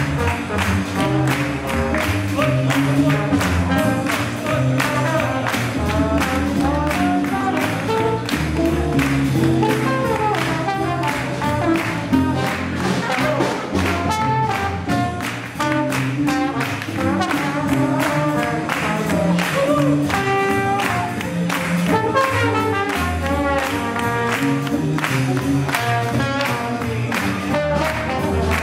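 Live swing jazz band playing, brass horns carrying the melody over double bass and a steady, evenly repeating beat.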